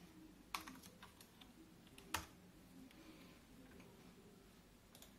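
Typing on the Raspberry Pi 400's built-in keyboard: a handful of quiet keystrokes in the first two seconds, with one sharper keystroke about two seconds in, then a couple of faint clicks near the end.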